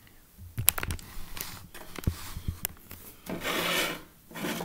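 Handling noise: a string of clicks and knocks, then a rubbing scrape lasting about a second, as the recording device and toys are moved about on a table.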